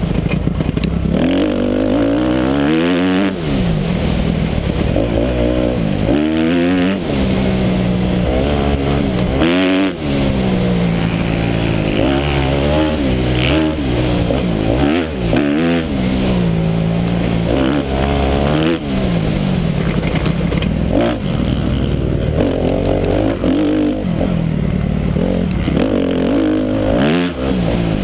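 A Honda 250cc motocross bike's engine, heard from the rider's helmet camera while riding the track, its revs climbing and dropping over and over as the rider accelerates, shifts and rolls off.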